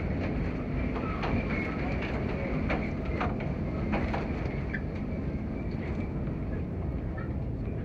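Airport baggage claim carousel running: a steady low mechanical rumble with a few scattered clacks.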